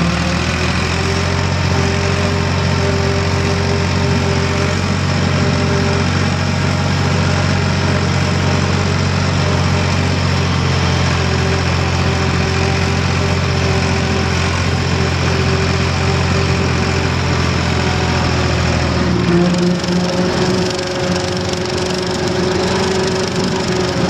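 Ford diesel tractor engine running steadily while driving a PTO rotary mower through grass. A little past two-thirds through, the engine note changes as the lowest part of the hum drops away.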